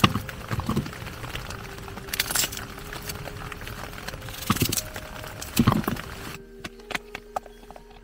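A steady noisy rush of wind and rain on the tent fabric, with several louder flapping gusts, cuts off suddenly about six seconds in. Scattered light ticks follow.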